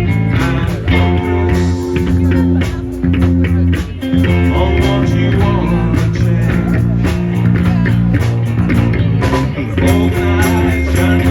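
Live rock band playing an instrumental passage: guitar and bass guitar over a steady beat.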